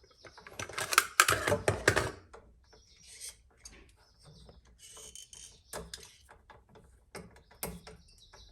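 Wire strippers clicking and scraping as insulation is cut and pulled off the ends of electrical wires, with a dense run of clicks and scrapes about a second in, then scattered clicks.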